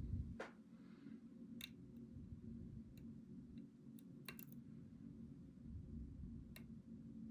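Lock pick working the pins inside a challenge lock, giving faint, sharp metallic clicks at irregular intervals, about six of them, two close together a little past the middle, over a low steady hum.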